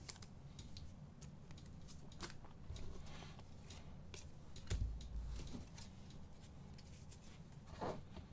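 Trading cards being handled and set down on a table, with faint scattered clicks and rustles. A dull thump comes about halfway through.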